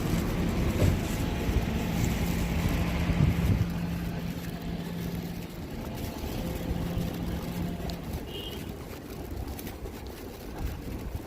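Suzuki Jimny running on the road: a steady low engine hum over road rumble. The hum drops away about eight seconds in and the sound gets quieter.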